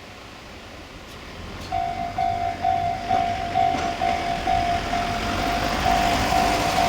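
Railway level-crossing warning bell starting up about two seconds in, a steady repeating ding a little over twice a second: the crossing is signalling an approaching train. A low rumble and hiss grow louder under it.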